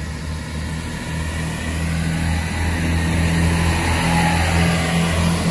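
Class 165 diesel multiple unit pulling away under power, its underfloor diesel engines giving a steady low drone that grows louder as the train passes.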